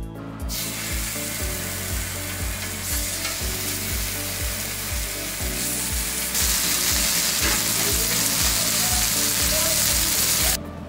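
Sliced pork belly sizzling on a hot griddle. The hiss starts about half a second in, gets louder about six seconds in, and cuts off suddenly just before the end. A steady music beat runs underneath.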